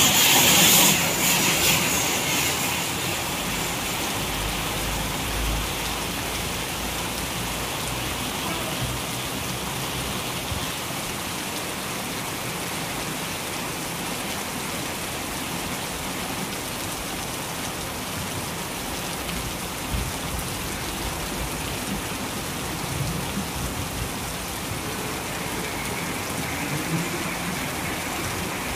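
Heavy rain pouring steadily, an even hiss, louder for the first two seconds or so before settling.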